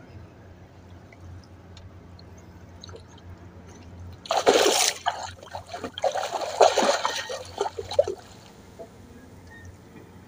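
Water splashing and sloshing in loud irregular bursts for about four seconds, starting a little before halfway, over a faint steady low hum.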